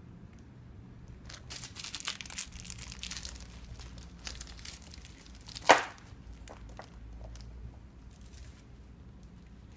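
Clear plastic wrapping on a small handbag crinkling and rustling as the bag is turned over in the hands, with one short, sharp, louder snap a little past halfway.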